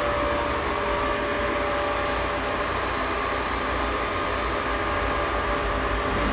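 Electric tram running at a steady speed: a steady whine from its drive over a low rumble.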